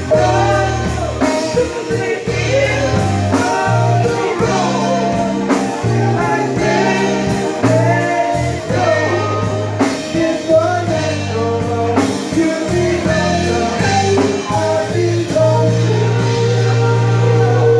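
Live band playing: sung lead vocals over electric guitar, a steady low bass line and a drum kit.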